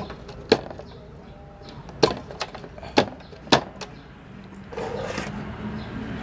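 Five sharp clicks and knocks at uneven intervals from wires and parts being handled at the back of a CRT television, followed about five seconds in by a short burst of rustling noise.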